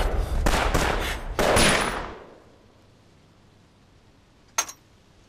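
A quick volley of about five rifle gunshots in the first two seconds, the last ringing away into a lull, then one more single sharp crack about four and a half seconds in.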